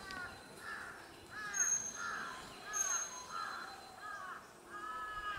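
A crow cawing repeatedly, about eight harsh caws at roughly one every half second to second, the last one drawn out near the end.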